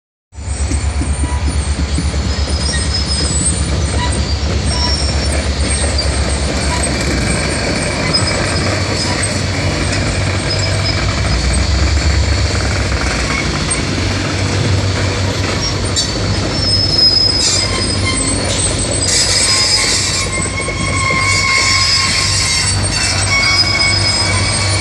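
A freight train of hopper cars rolling past with a continuous deep rumble, its wheels squealing on the rails in high thin tones that come and go, more often in the second half.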